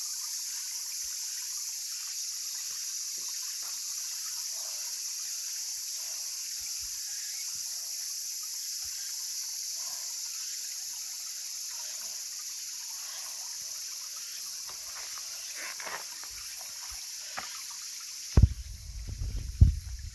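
A small mountain stream trickling, under a steady high-pitched hiss. Near the end, loud low buffeting thumps hit the microphone.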